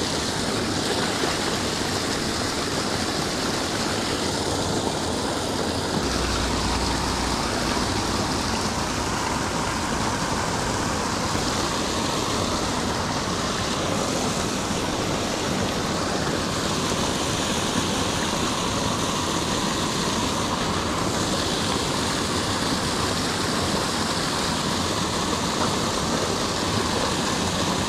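Small waterfall spilling over a man-made stone and concrete wall into a pool: a steady rush of falling water.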